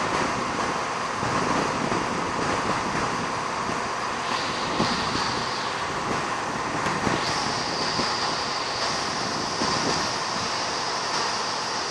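ScotRail Class 170 Turbostar diesel multiple unit moving past along the platform: a steady rumble and hiss from its underfloor diesel engines and wheels. A high steady whine sets in about four seconds in and grows louder from about seven seconds.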